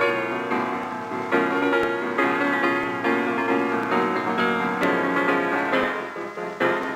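Piano music, a run of notes changing several times a second.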